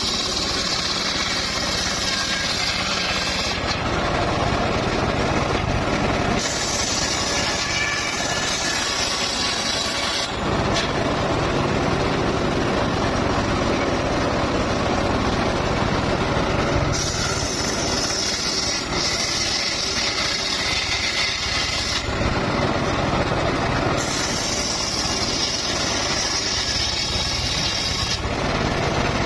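Engine-driven sawmill running steadily while its blade cuts mahogany. The harsh, high cutting noise comes and goes in stretches of a few seconds, four times, over the constant engine hum.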